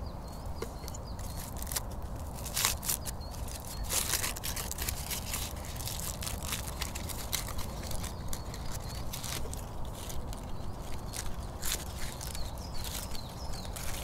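Aluminium foil crinkling and rustling in irregular crackles as foil-baked potatoes are unwrapped by hand.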